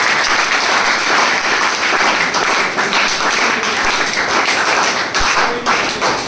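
A roomful of students applauding, many hands clapping together in a dense, steady patter.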